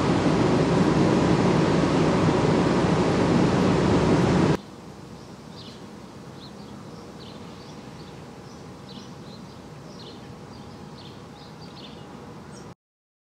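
Loud steady rushing noise with a low hum, which cuts off abruptly about four and a half seconds in. It gives way to quiet outdoor background with small birds chirping repeatedly, and the sound stops just before the end.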